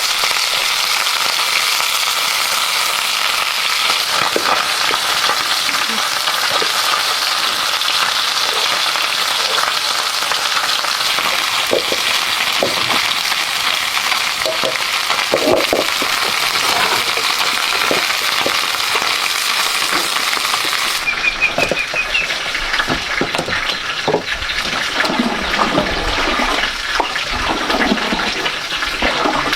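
Food frying and sizzling in hot oil, a dense steady crackle. About two thirds through it cuts abruptly to splashing, running water with small knocks.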